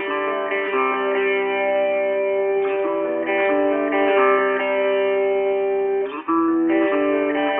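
Outro background music played on guitar, sustained plucked notes that pause briefly about six seconds in.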